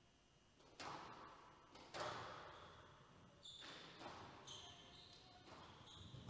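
Squash rally: two sharp ball strikes with long hall echo about one and two seconds in, followed by short high squeaks of court shoes on the wooden floor as the players move.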